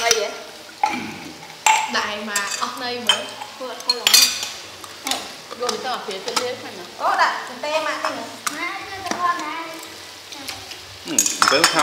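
A metal spoon stirs and clinks in a small ceramic bowl of dipping sauce, with scattered sharp clinks of utensils against dishes.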